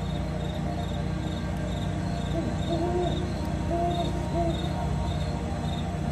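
A cricket chirping steadily, about two short high chirps a second, over a steady low rumble; a few short low held tones come in around the middle.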